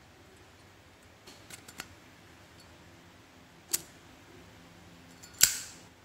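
Brass Zippo lighter being put back together: a few light metal clicks as the insert goes back into the case, a sharper click a few seconds in, then a loud metallic clack with a brief ring near the end as the lid snaps shut.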